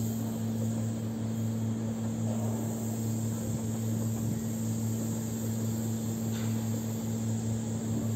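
Steady low drone and hum of an electric multiple-unit passenger train approaching on the track, holding a constant pitch and level.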